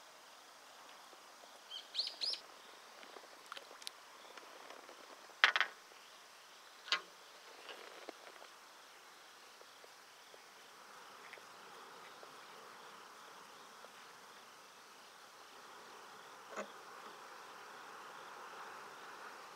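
Quiet outdoor ambience with a few high bird chirps about two seconds in and a faint steady insect hum. Several short sharp knocks stand out, the loudest about five and a half seconds in.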